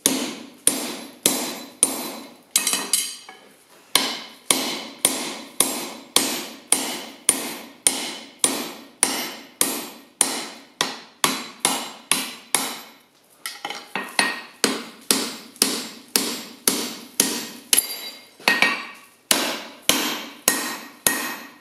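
Hand hammer striking a drift into hot steel on an anvil, a steady run of blows about two a second with a short pause about two-thirds of the way through. The drift is made from forklift truck tine.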